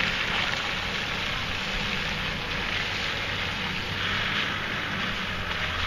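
A vehicle engine running steadily with a low hum, under a steady hiss of tyre and road noise on a muddy dirt track.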